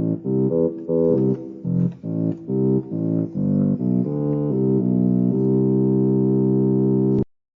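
Casio CTK-2400 electronic keyboard playing one of its preset voices: short chords repeated in a rhythm, then a long held chord that cuts off suddenly about seven seconds in.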